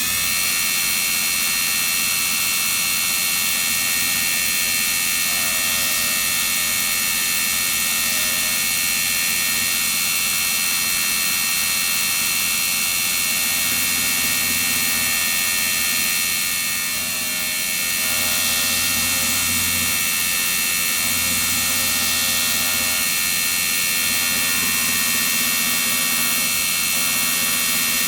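Belt surface grinder running steadily with a 120-grit belt, grinding steel pocket-knife blades flat on a magnetic chuck as the slide is moved slowly back and forth. A steady whine with several high tones, dipping slightly about two-thirds of the way through.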